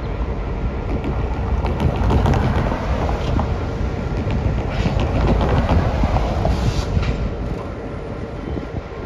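Diesel locomotive running as it rolls slowly along the track, a steady low rumble with scattered clicks and clanks from the wheels on the rails, loudest about two seconds in and again around the middle.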